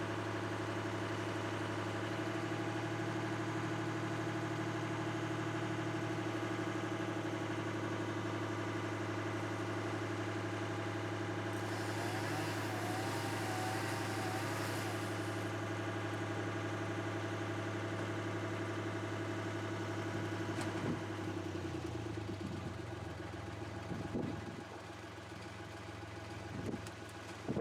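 An engine idling steadily, easing down about two-thirds of the way through, with a few short knocks near the end.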